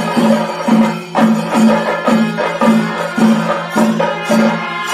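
Music with a steady percussive beat of a little under two strokes a second over sustained pitched tones.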